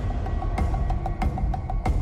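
Tense dramatic background music: a low drone under a steady, regular drum beat.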